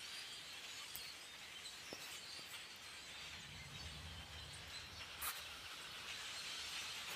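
A large flock of common grackles calling together: a steady, faint din of many overlapping squeaky calls, with a few sharp clicks and a brief low rumble around the middle.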